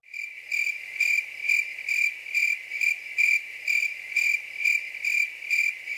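Cricket chirping: a steady high trill that pulses evenly about twice a second, starting abruptly.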